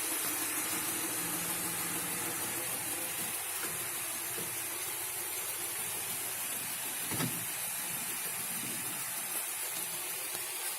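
Van on the move: a steady hiss of running noise with a low engine hum that fades over the first few seconds, and a single knock about seven seconds in.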